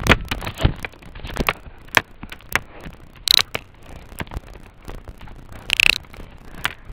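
Irregular crackling clicks and knocks of a laptop being carried and jostled while walking over wet ground.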